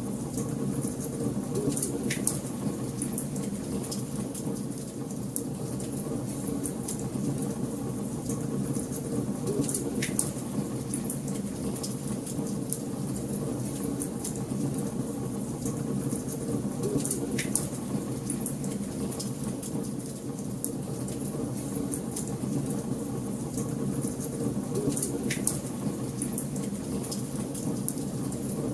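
Wood fire burning in a fireplace: steady crackling over a low rumble of flames, with a sharper pop about every eight seconds.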